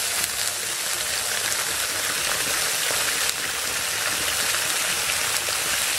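A steady stream of water pouring and splashing into a wok of hot chili oil and dried chilies, an even hiss without a break.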